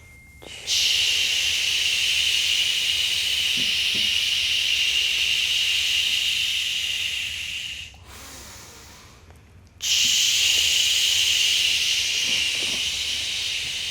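Loud steady hiss in two long stretches, the first about seven seconds and the second about four, each cutting in abruptly.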